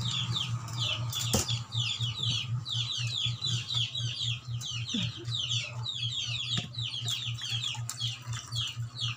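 A brood of chicks peeping nonstop, many short falling peeps overlapping several times a second, over a steady low hum.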